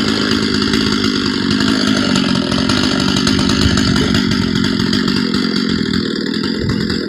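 Gasoline chainsaw running steadily at high revs, cutting through very dry, hard black oak firewood.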